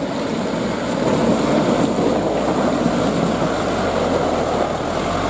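Mitsubishi Fuso Canter light truck's diesel engine running as the truck crawls through deep mud, getting louder about a second in and adding a deep rumble as the truck draws alongside near the end.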